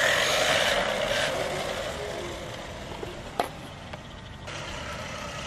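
Rlaarlo XDKJ-006 1/14 RC buggy's brushless motor whining, with its tyres rolling on asphalt, fading as the buggy drives away. A single sharp click comes about three and a half seconds in.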